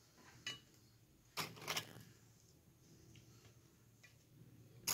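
Quiet handling sounds with a few soft taps and clicks: one about half a second in, two close together near two seconds, and one at the end. They come from Pavesini biscuits being dipped in espresso and laid in a serving dish.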